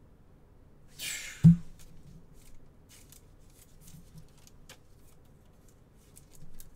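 Handling noise at a card-breaking desk: a short scraping rustle about a second in ends in a sharp knock on the desk, the loudest sound, followed by faint scattered clicks and rustles.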